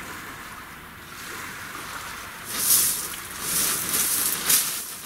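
Steady hiss of the sea and wind, then from about halfway crunching footsteps close by.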